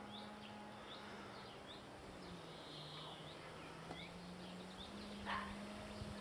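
Faint outdoor ambience of small birds chirping repeatedly among trees, with one louder call falling in pitch about five seconds in. Underneath is a steady low hum that dips slightly in pitch midway.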